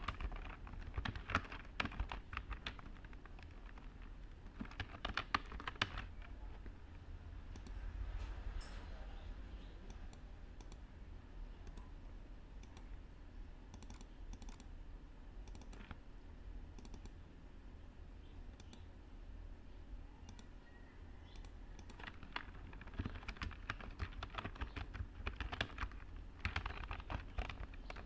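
Typing on a computer keyboard in bursts: a run of keystrokes at the start, another about five seconds in, and a long stretch of quick typing in the last six seconds, with scattered single clicks between. A steady low background noise sits under it.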